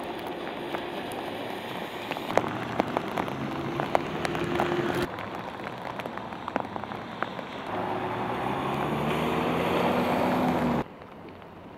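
Steady rain with scattered drop clicks. A motor vehicle's engine climbs in pitch twice, the second time louder as it speeds up, with a wash of water noise. Near the end the sound cuts off abruptly to a quieter hiss.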